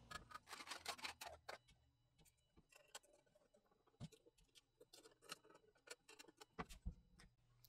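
Near silence with faint, scattered clicks and taps of a small metal box being handled, thickest in the first second and a half, then sparse.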